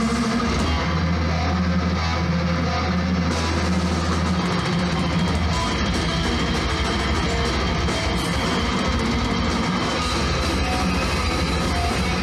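Live metal band playing an instrumental passage: loud guitars over a drum kit with cymbals, with no vocals. A low note is held for the first four seconds or so, then the riff turns choppier.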